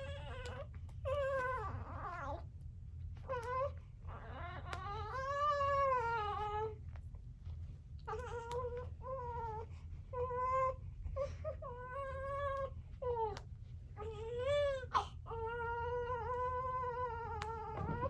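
Newborn baby crying in a string of high wails, each up to about two seconds long, with short catches of breath between them. The mother takes the crying for anger and, soon after, for the baby being cold.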